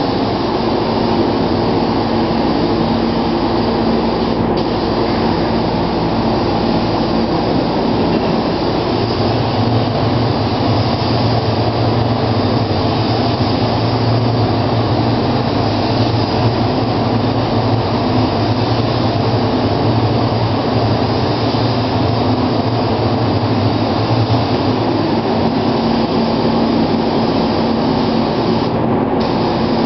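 Gravity-feed paint spray gun hissing with compressed air as it sprays clear coat, over the steady rush and low hum of paint-booth ventilation. The high hiss drops out briefly twice.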